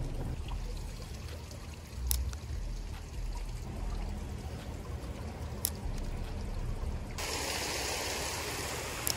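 Water trickling and running in a shallow creek over a low rumble of wind on the microphone, with a couple of sharp clicks. About seven seconds in, a brighter, louder hiss of running water sets in suddenly.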